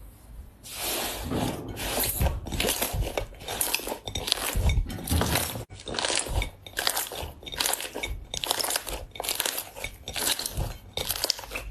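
Hands squeezing and pressing slime, a run of short noisy squishes about twice a second, with a brief break midway.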